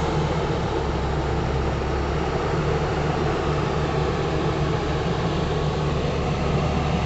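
Heavy diesel engine running at a steady speed, an even low hum with no revving.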